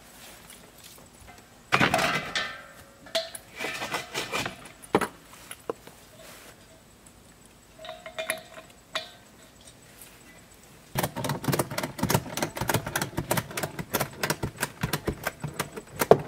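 Steel 30-pound propane cylinders clanking and clinking as they are set onto the camper's tongue rack. A loud clank comes about two seconds in and a short ringing clink near the middle, followed by a fast run of rattling clicks over the last five seconds.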